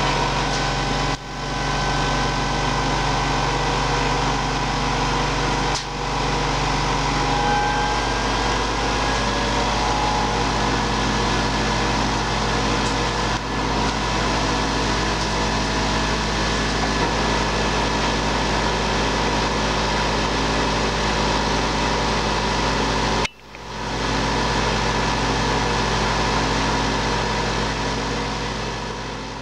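Steady machine-shop noise from metal machining in the background, with a constant hum, over a Toycen Tradesman DC bench grinder running its two 8-inch CBN wheels smoothly at about 3000 rpm with just a little breeze of air. The sound drops out briefly three times and fades out at the end.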